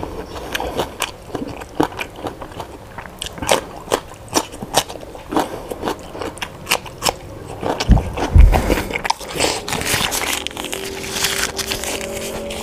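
Close-miked crunching bites and chewing of raw vegetables, a rapid run of sharp crackling crunches, with one heavy low thump about eight seconds in.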